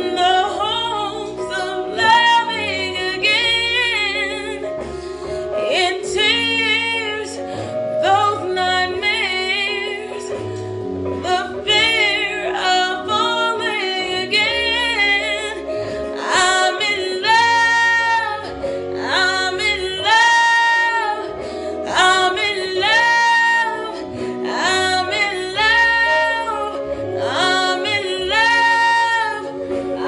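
A woman singing over an instrumental backing track, with long held notes that waver in pitch.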